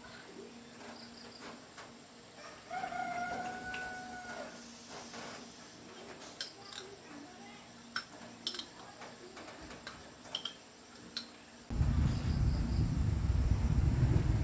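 A rooster crows once, one long call about three seconds in, followed by a few sharp clicks. Near the end a motorcycle engine starts and runs, suddenly much louder than anything before.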